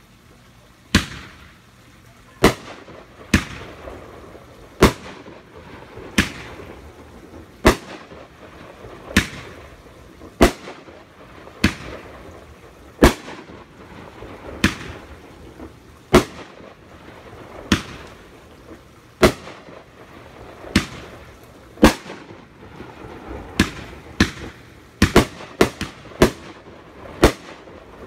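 RGS Patriot 500 g fireworks cake firing a string of sharp bangs, roughly one every second and a half, coming faster and closer together near the end, with fainter crackle between the reports.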